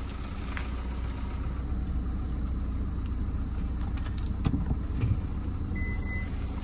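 Vehicle engine running steadily with a low rumble, with a few faint knocks about four and a half seconds in and a short high tone about six seconds in.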